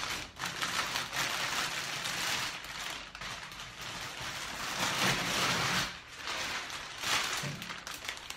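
Large clear plastic bag crinkling and rustling as it is handled and pulled off a heater, in uneven swells that are loudest about five seconds in and again near the end.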